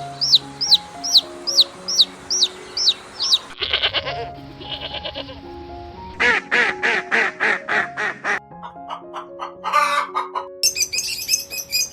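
Background music with steady notes under a series of animal calls: repeated high chirps about three a second for the first few seconds, then a rapid run of short pulsed calls, and dense high chirping near the end.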